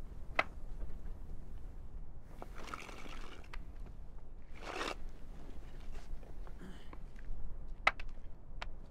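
Full-body prostration on gravel: sharp wooden clacks from the hand boards and the rough scrape of a body and hands sliding forward over stony ground. There are several single clacks and two longer scrapes, about two and a half and about four and a half seconds in.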